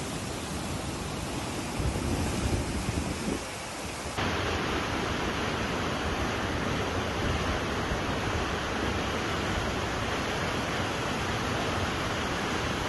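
Steady rush of floodwater with storm wind, a heavier low rumble about two seconds in; about four seconds in the sound changes abruptly to a fuller, steady rush.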